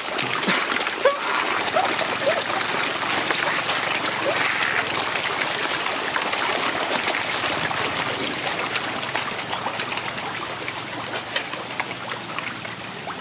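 Koi and other fish crowding and gulping at a pond's surface, a steady splashing of water full of small pops and slaps, easing a little near the end.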